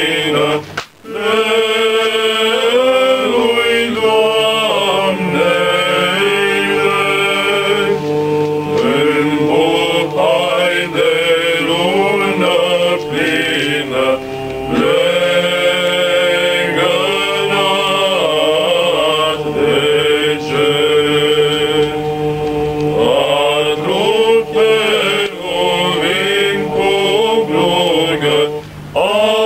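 Male vocal group singing a Romanian colindă (Christmas carol) a cappella, the melody moving over a steady held drone note, with a short breath break about a second in.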